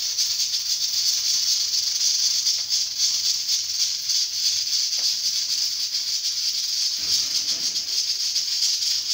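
Pressure cooker's weight valve releasing steam: a loud, steady hiss with a fast flutter through it, the sign that the cooker is up to pressure.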